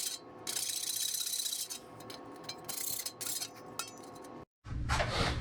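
Short runs of scraping and rubbing as a hand tool works on a shower door's bottom rail, stopping abruptly near the end.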